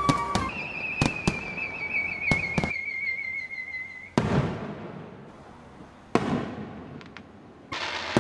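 Fireworks sound effects: a wavering whistle that slowly falls in pitch for about three seconds, with a few sharp cracks, then three bursts about four, six and nearly eight seconds in, each a sudden bang that fades away.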